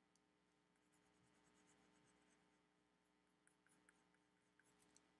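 Very faint scratching of a colored pencil worked over paper, with a few light ticks near the end.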